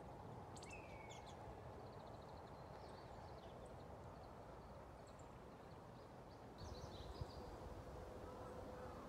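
Faint outdoor ambience: a low steady hiss with small birds chirping here and there, including a short falling call about a second in and a quick trill a few seconds later. A faint steady hum comes in near the end.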